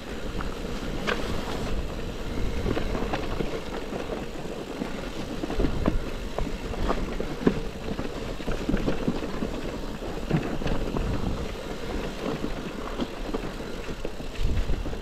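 Electric mountain bike riding over a rough trail: a low rumble of wind and tyres on stones, a faint steady hum, and frequent clatters and knocks from the bike jolting over the ground.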